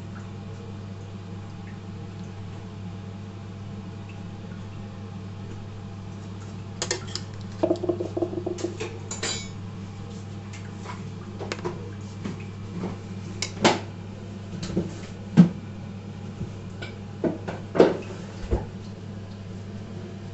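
A serving utensil clinks and scrapes against a metal pan and a plate as chicken curry is served. Scattered knocks and clatters begin about a third of the way in, with a few short rings, over a steady low hum.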